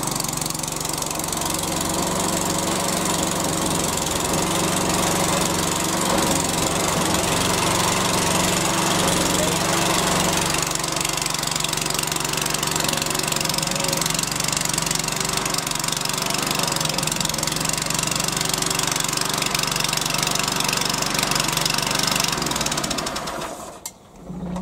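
Hyundai HYM430SPER self-propelled roller mower's 139cc petrol engine running steadily after an electric start, blade turning. It stops about a second before the end.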